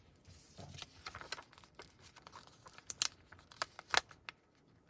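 Sticker sheet and paper being handled: light crinkling and rustling with scattered small clicks, as a sticker is peeled from its backing. Two sharper ticks stand out about three and four seconds in.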